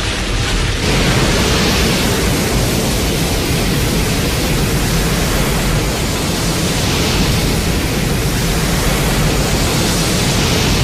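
Steady, loud rushing noise: a low rumble under a hiss, swelling slightly about a second in and again near the end, from a monster-series sound-effects library.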